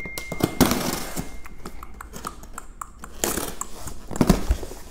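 A cardboard shipping box handled and opened by hand: scrapes, rubs and knocks of the cardboard in a few short bursts, with scattered clicks between.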